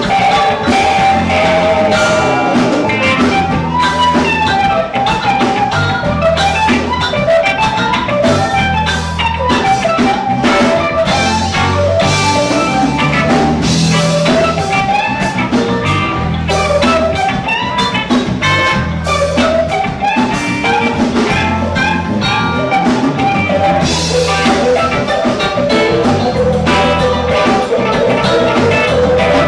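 Live rock band playing an instrumental passage: electric guitars, bass guitar and drum kit with a steady beat and a winding melodic lead line.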